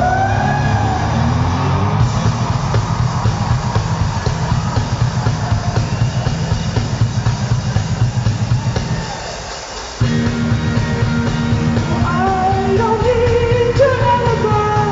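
Live band music over a concert PA, heard from within the crowd: a steady beat and bass under sliding melody lines. About nine seconds in the bass and drums fade away for about a second, then come back at once.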